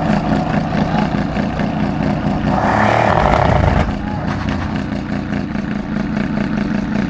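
Mercedes-Benz SL63 AMG's twin-turbo V8 idling steadily, with a brief louder rush of noise about three seconds in.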